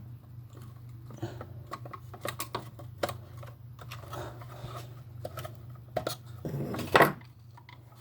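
Irregular small clicks, taps and clinks of small plastic and metal parts being handled during RC car reassembly, with a louder clatter about seven seconds in. A steady low hum runs underneath.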